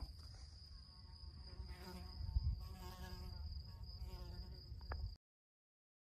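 Insects in a field: a steady high, cricket-like trill runs throughout. An insect buzzes for a few seconds in the middle, over a low rumble, and all sound cuts off abruptly about five seconds in.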